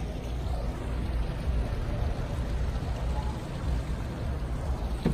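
Harbour ambience from a moored boat's deck: a steady low rumble under an even wash of noise, with no distinct events.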